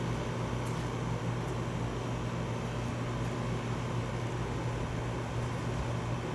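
Steady low mechanical hum over a constant even hiss, like an air-conditioning unit running; no thunder.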